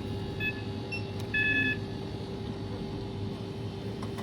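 Checkout scanner beeping: a short two-tone beep, then a longer, louder beep about a second later, over a steady store hum.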